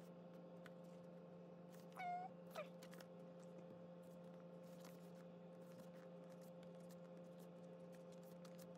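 Quiet room with a steady low hum and faint clicks from a photobook's pages being handled. About two seconds in, a short meow, then a briefer second one.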